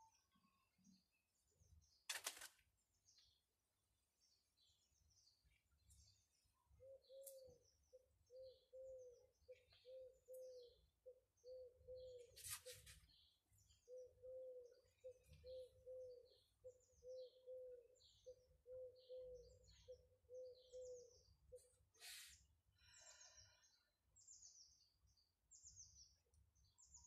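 Faint birdsong: many short high chirps, with another bird giving a repeated low cooing call about twice a second through the middle. A few brief sharp noises, the loudest about two seconds in.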